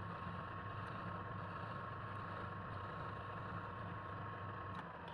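Woodturning lathe's electric motor running steadily with a constant high whine over a low hum; the whine stops near the end.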